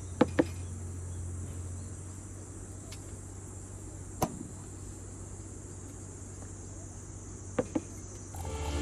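Crickets chirring steadily in a high, even band over a low steady rumble, broken by a few sharp snaps: two near the start, one in the middle and two close together near the end.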